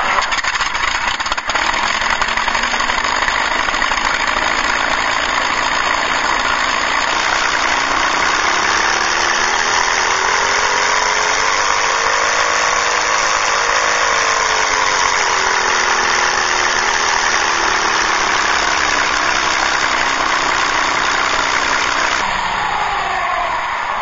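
WWII warplane piston-engine sound played by an RC model sound unit: a steady, loud engine sound whose pitch climbs in the middle and then falls back, changing again near the end.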